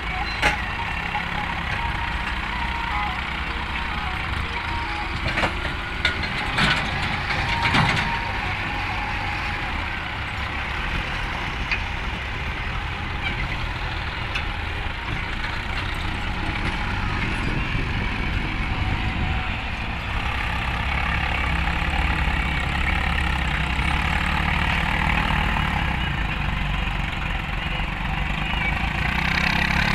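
Several farm tractors' diesel engines running steadily while they pull box scrapers through loose sand, with a few sharp knocks in the first eight seconds.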